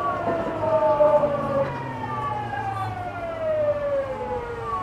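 Tokyu 9000 series train heard from inside the car: the VVVF inverter and traction motors whine in several tones that fall steadily in pitch as the train slows under braking, over the low rumble of the running train.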